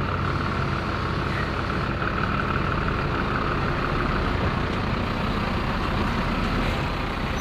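Scania semi-truck's diesel engine running as the truck pulls slowly past and turns, a steady low rumble with a faint high whine over it.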